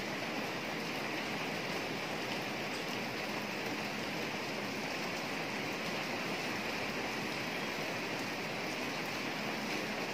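Steady rain falling on a flat concrete rooftop with standing water: an even, unbroken hiss of drops.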